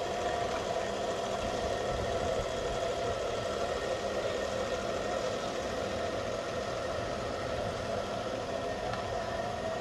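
Steady mechanical hum of a small motor, an even drone with a prominent mid-pitched tone that holds constant throughout.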